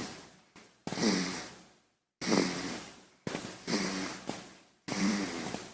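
A baby snoring: short snoring breaths about every second and a quarter, each beginning with a rough, pitched rasp that fades away, with abrupt silences between them.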